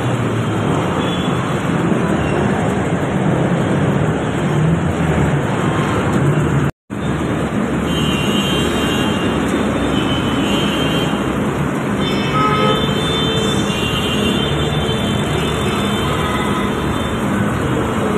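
Steady traffic noise of motorcycles and cars driving through a flooded street, engines mixed with the wash of water. The sound cuts out completely for a moment about seven seconds in.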